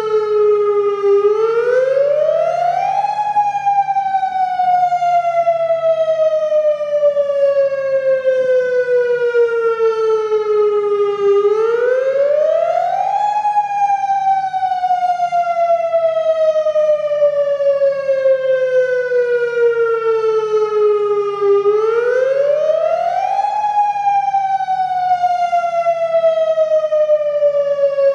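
Federal Signal Modulator 3012 outdoor warning siren sounding its wail during a routine test. The tone climbs quickly over about two seconds, then slides slowly down over about eight, three times.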